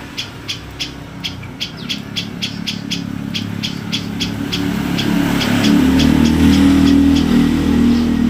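A songbird's short, high chirps repeated at an even pace, about three to four a second. From about five seconds in, a motor vehicle's engine rumbles louder, the loudest sound by the end.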